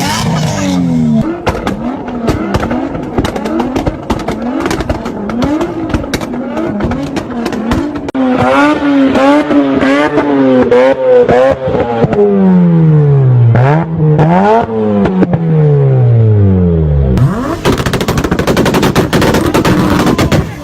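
A car engine revved hard again and again, its pitch climbing and dropping, with rapid cracks and pops from the exhaust throughout. Near the end the pitch falls away and a loud, dense crackling rasp takes over.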